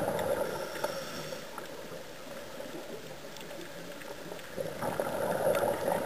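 Underwater, a scuba diver's exhaled breath bubbling out of the regulator: a rushing, gurgling burst in about the first second and another from about four and a half seconds in, with a quieter hiss and a few faint clicks between.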